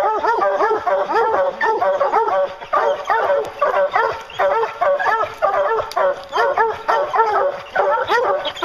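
A pack of English hounds barking at the foot of a tree, with several voices overlapping in a rapid, unbroken chorus. This is the tree bark of hounds that have a black bear treed.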